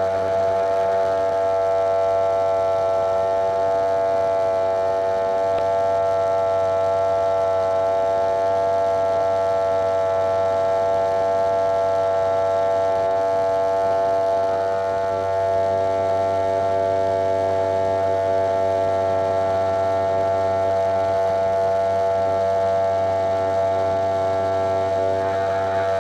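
Wahl electric hair clipper running steadily, a constant electric buzz with a deep low hum beneath it, heard very close up.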